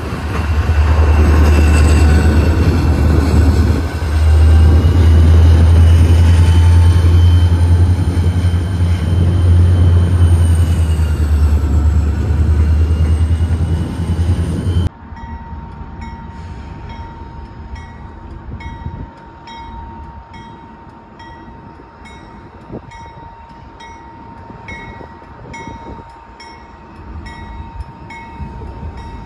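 Freight train running close by: a deep diesel rumble with high gliding squeals from the wheels on the rails. About halfway through the sound cuts abruptly to a much quieter, distant train with a steady hum and even clicking about once a second.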